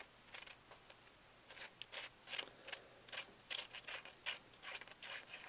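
Faint, irregular clicks and light scrapes of the threaded metal sections of a handheld laser body being unscrewed and handled.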